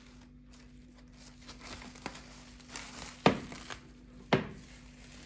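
Rustling and crinkling handling sounds over a steady low hum, with two sharp knocks about a second apart past the middle.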